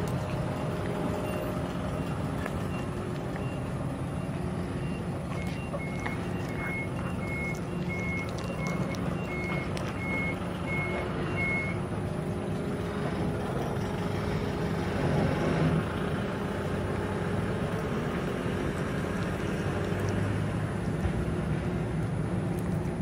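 A vehicle's engine running steadily, with a reversing alarm beeping repeatedly until about halfway through.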